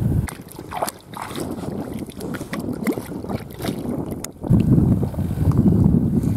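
Water splashing and lapping against an inflatable kayak's side as a small hooked perch is brought up to the surface. About four seconds in it gives way to a loud, steady buffeting of wind on the microphone.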